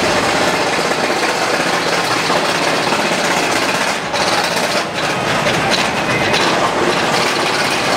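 Intamin launched inverted steel roller coaster train running along its track, a loud steady rush of noise.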